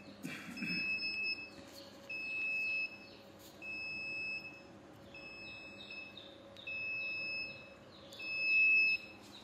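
Digital controller of an automatic egg incubator beeping: a high electronic tone sounding five times, each beep about half a second to a second long, at uneven gaps.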